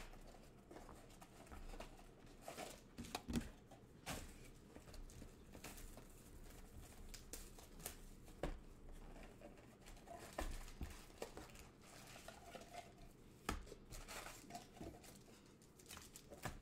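Football trading card packs being ripped open by hand: wrappers crinkling and tearing, with irregular clicks and taps as cards are handled.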